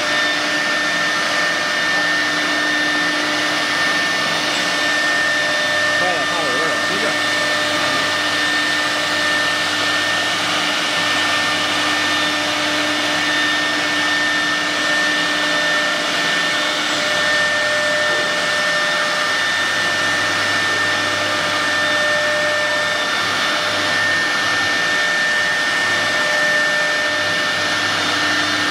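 A 6 kW HSD electric spindle of a CNC wood router running at speed: a steady high-pitched whine over a constant rushing hiss.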